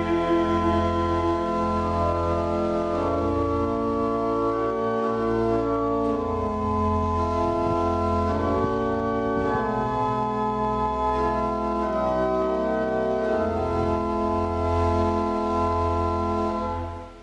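Organ playing slow held chords over a steady bass, the instrumental close of a hymn, dying away at the very end.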